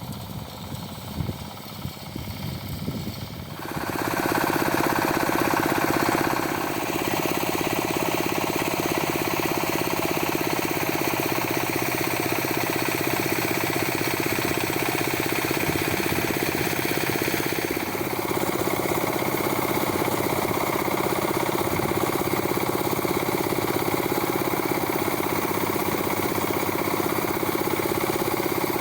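Rice combine harvester's engine and machinery running. Uneven knocking for the first few seconds, then about four seconds in it rises sharply to a loud, steady running drone that holds, with a slight change in tone near the middle.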